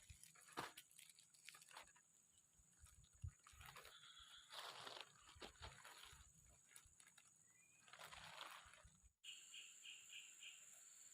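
Faint scattered clicks and soft rustles. About nine seconds in, the sound changes abruptly to a steady high insect trill, with four quick chirps in a row.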